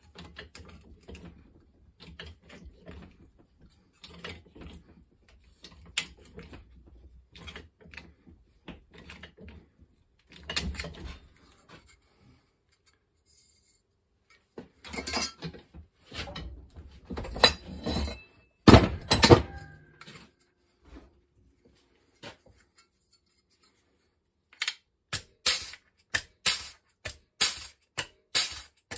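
Hand-lever metal stretcher clamped in a vise, clicking and clunking with each stroke of the handle as it bends a strip of flat steel into a curve. Past the middle come a few louder knocks, and near the end a quick run of sharp regular clicks, about two a second.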